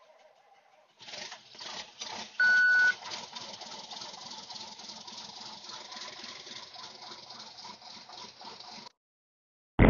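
John Deere 4450's six-cylinder turbo diesel cold-starting: it cranks and catches about a second in, with a short high beep just after, then settles into a steady rattly idle. The sound cuts out shortly before the end.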